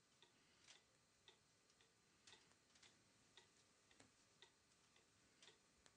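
Near silence with a faint clock ticking steadily, about two ticks a second.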